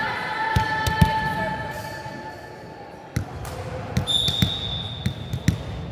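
A volleyball bounced on a sports-hall floor, giving repeated sharp thumps. A long, high whistle sounds from about four seconds in, typical of the referee's whistle to serve. Held voices are heard in the first two seconds.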